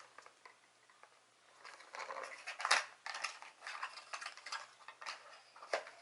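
Product packaging handled close to the microphone: faint rustling with scattered clicks, busiest about halfway through, with a sharper click then and another near the end.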